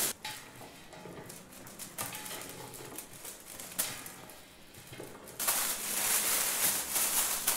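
Clear plastic roasting bag crinkling as oiled eggplant cubes are dropped into it by hand from a steel bowl, with scattered light patters and ticks. From about five seconds in, a steadier, louder rustling of the plastic as the pieces are spread out in the bag.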